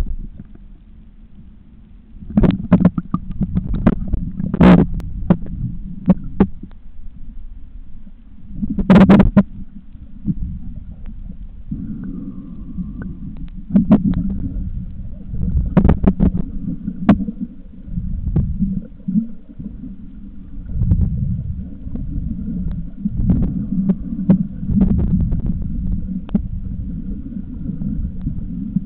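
Muffled underwater rumbling and sloshing of water around a submerged camera's waterproof housing, with repeated knocks and bumps on the housing. It grows louder after about two seconds.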